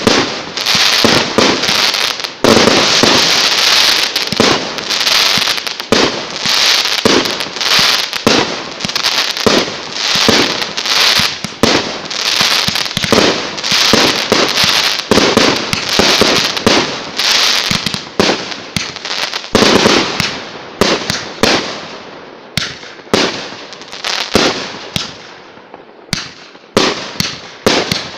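Aerial fireworks firing in a rapid barrage, a dense run of overlapping bangs that thins out in the last third to separate bangs about a second apart.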